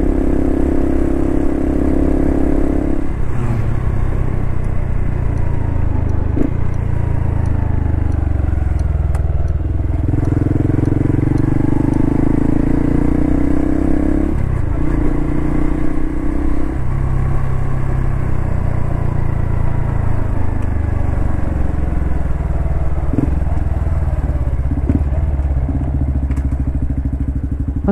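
Customised Honda Cross Cub 110 (JA45) with its small single-cylinder four-stroke engine running under way, heard close from the handlebars. The engine note steps up and down several times, and there are a few light knocks near the end.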